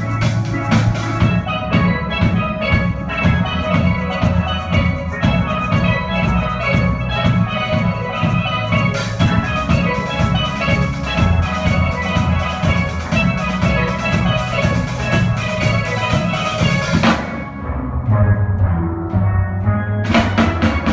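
Steel band: many steelpans struck with mallets, playing a rhythmic piece together with a drum kit and cymbals. About seventeen seconds in the cymbals drop out while the low pans carry on, and loud accented strokes come near the end.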